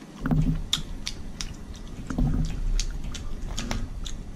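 Close-miked wet chewing and lip smacking of seafood boil, with many short sharp clicks and a couple of brief low hums.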